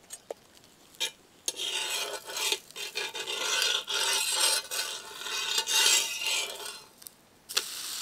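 Metal spatula scraping and rasping against an iron tava as it is worked under a rotti to loosen it, after a few light clicks of metal on iron. Near the end a steady sizzle of the rotti frying on the hot pan.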